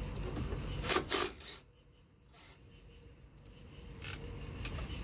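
Two sharp knocks about a second in, a quarter second apart, as hand tools strike the metal of a jet-boat pump while it is taken apart, followed by a few faint clicks near the end.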